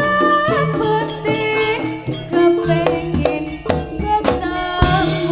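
Live jaranan sentherewe music from a Javanese ensemble: regular drum strokes and steady low gong tones under a melody that slides up and down in pitch.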